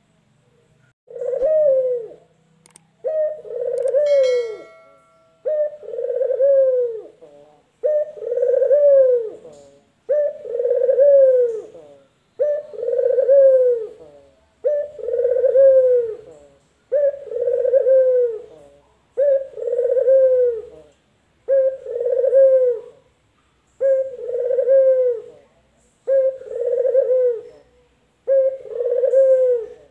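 Male puter dove (domestic ringneck/Barbary dove) cooing in its cage: a long, even series of coos, one about every two seconds, each rising then falling in pitch. A short steady tone is heard about four seconds in.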